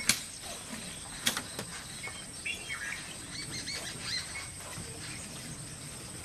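Wild birds chirping in quick, short, falling notes over a steady high-pitched insect drone, with two sharp clicks, one right at the start and another about a second later.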